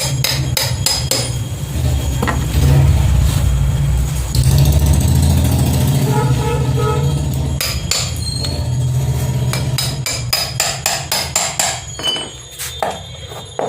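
Runs of rapid hammer blows on the hard plastic case of a sealed lead-acid battery being forced open, about three strikes a second, over a steady low hum.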